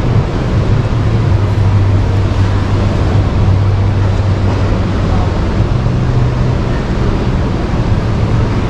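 Steady background noise of a busy exhibition hall: indistinct crowd murmur over a constant low hum.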